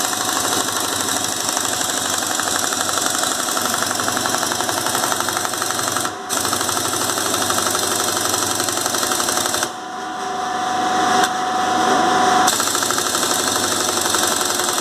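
Impact wrench hammering as it runs down the top nut of a car's front strut against a new strut mount and bearing. The rapid rattle runs with a brief break about six seconds in, then a lull near ten seconds before it picks up again; the tool is weak.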